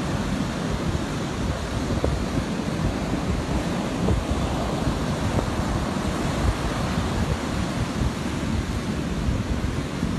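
Surf breaking and rushing on a sandy beach, with wind buffeting the microphone: a steady rushing noise.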